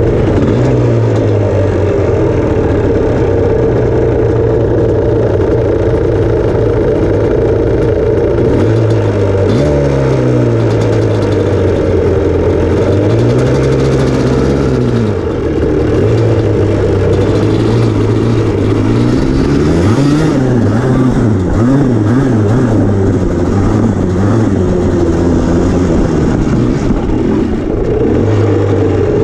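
Yamaha Blaster's two-stroke single-cylinder engine idling steadily, then revving up and down in several surges, about ten seconds in, around fourteen seconds and again from about twenty to twenty-three seconds, before settling back to a steady run.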